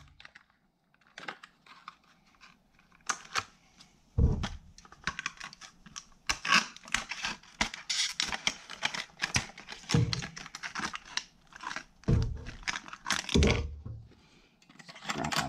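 Hard plastic clamshell blister packaging being handled and cut open with scissors: a quick run of crackling clicks and crinkles that starts about three seconds in, with a few dull knocks.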